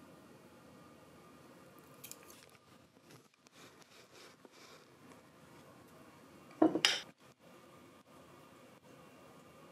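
Quiet room with a small tableware sound about two seconds in and one brief, louder clatter of tableware near the seven-second mark.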